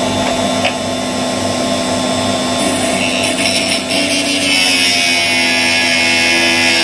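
Electric end mill sharpener's motor running with a steady hum. About two and a half seconds in, a dull 8 mm end mill held in a collet starts grinding against the wheel in the first port, which cuts the flute gashes. The hissing grind starts patchy and becomes louder and steady about halfway through.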